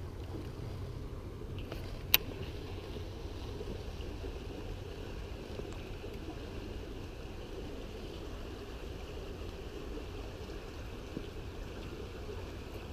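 Steady low rumbling background noise, with one sharp click about two seconds in.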